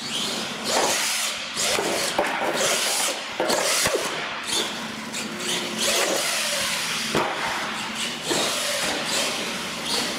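Radio-controlled monster truck driving hard on a concrete floor, its motor whining up and down in pitch with tyres scrubbing, and sharp knocks as it lands on and hits wooden ramps.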